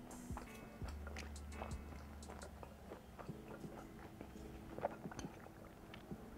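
Faint close-miked chewing: soft wet mouth sounds and small clicks as a last mouthful of pizza is eaten.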